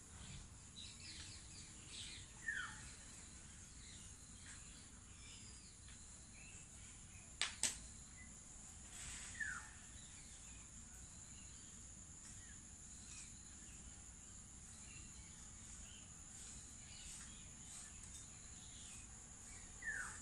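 A steady high-pitched insect drone with scattered bird calls, among them a short falling call heard three times. Two sharp clicks about seven and a half seconds in are the loudest sound.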